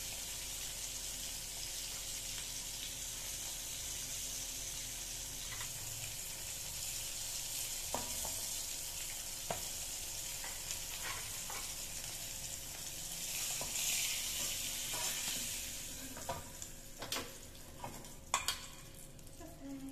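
Salted fish sizzling in hot oil in an aluminium wok, the hiss swelling and then fading. Metal spatula and skimmer clink and scrape against the wok in a few sharp knocks toward the end as the fish is turned and lifted out.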